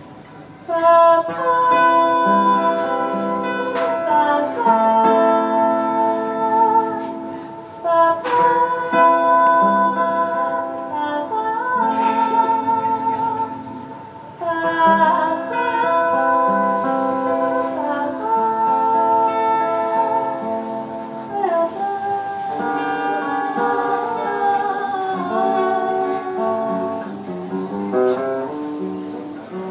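A woman singing live with an acoustic guitar accompaniment; her voice comes in about a second in, holding long notes with slides between them.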